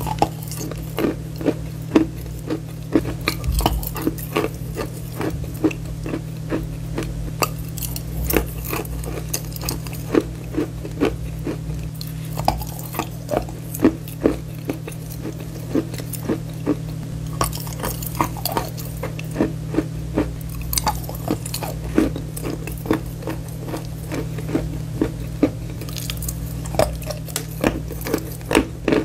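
Close-miked crunching of bar chalk being bitten and chewed: many sharp crisp snaps and crackles in quick irregular succession, over a steady low hum.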